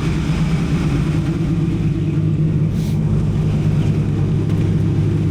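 V8 engine of a 1983 Oldsmobile Cutlass Hurst/Olds idling steadily.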